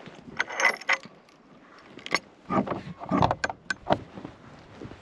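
Metal horse tack clinking and rattling in several short clusters, with a few dull knocks about halfway through.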